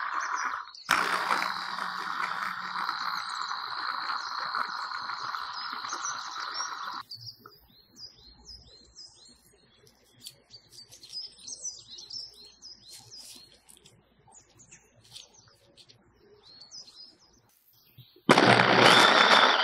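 Kenwood electric mini chopper running as it chops onion, green chillies and coriander, in a short burst and then a longer one that stops about seven seconds in. A quieter stretch with faint bird chirps follows, and the chopper starts again near the end, now with fish fillet in the bowl.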